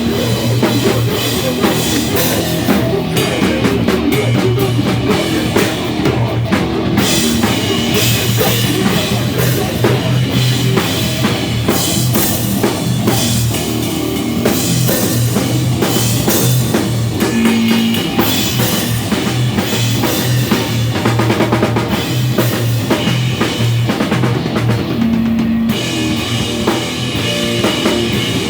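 A live rock band playing a song at full volume: a drum kit with bass drum driving a steady beat, under electric guitars.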